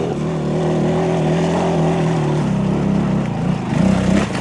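Off-road vehicle engine running at a steady speed, then revving unevenly from a little past halfway as it pulls up a trail obstacle.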